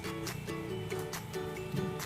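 Background music: an upbeat track with plucked guitar or ukulele-like notes, a bass line and a steady beat.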